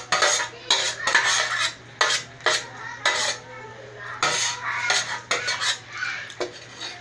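A metal spoon or fork scraping and clinking against an aluminium serving tray and a ceramic plate in quick, irregular strokes, as the last of the spaghetti is scraped out of the tray.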